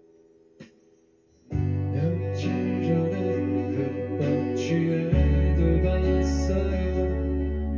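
Live pop band music: after a brief near-silent lull with one faint click, the band comes in about a second and a half in, guitars over bass and drums, the bass growing heavier about five seconds in.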